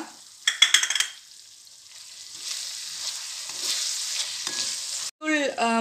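A perforated spatula scrapes and stirs onions, tomato and chilli powder in a metal kadai, with several sharp scraping strokes about half a second in. The oil's frying sizzle builds from about two seconds in.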